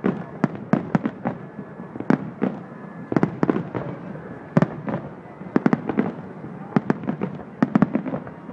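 Aerial firework shells bursting in a display: a quick, irregular string of sharp bangs, several a second, coming in clusters.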